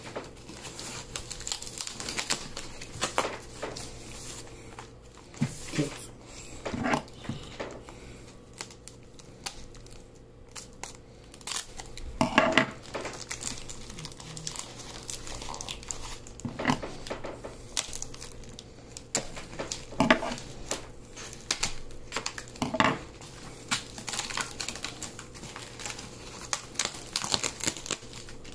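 Paper and plastic packaging being handled and unwrapped, a continuous crinkling with louder irregular rustles scattered through.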